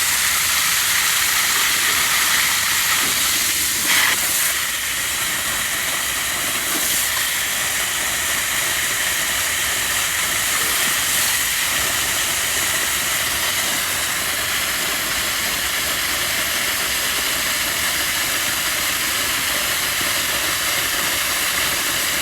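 Pressurized water spraying and rushing out of an open 2-inch water line at the blowoff: a steady, loud hiss, with a brief surge about four seconds in.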